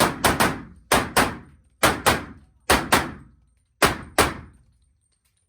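Rapid pistol fire at a practical shooting stage: shots mostly in pairs (double taps), a new pair about every second, each shot ringing off. The string ends about four seconds in.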